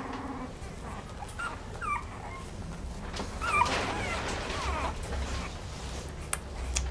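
A dog whining, with a few short high whines that bend in pitch, around a second and a half in and again about three and a half seconds in.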